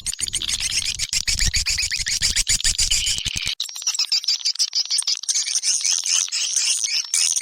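Recorded swiftlet lure call (suara panggil walet): dense, rapid twittering chirps and clicks from swiftlets, the kind played to draw the birds into a nesting house. A low hum beneath it stops abruptly about halfway through.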